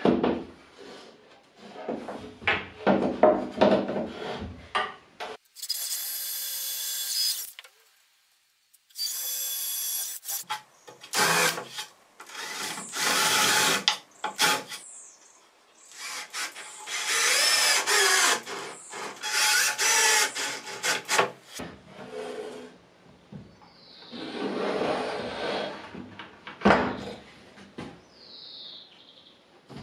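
Woodworking handling sounds: pine boards and a clamp knocking and sliding on a workbench while a jig is assembled. A power tool runs for about two seconds twice, about a quarter of the way in.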